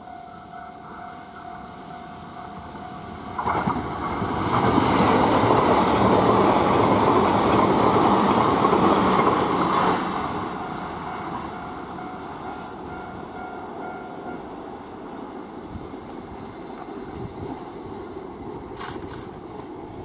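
E655 series electric train passing a level crossing at speed. A level-crossing warning signal sounds as a steady tone at first. About three and a half seconds in, the loud rush and rail noise of the passing train comes in suddenly and lasts to about ten seconds, then drops to a lower rumble as the train draws away.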